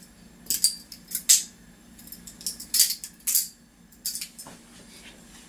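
BRS Alpha Beast balisong (butterfly knife) being flipped: its handles clack and rattle against the blade in quick, irregular clusters of sharp metallic clicks, which thin out in the last second or so.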